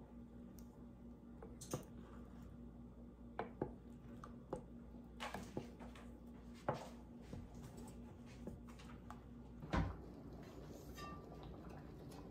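Wooden spoon stirring a thick, creamy filling in an enameled Dutch oven, with scattered light knocks and scrapes against the pot. A heavier thump comes about ten seconds in, where a low steady hum stops.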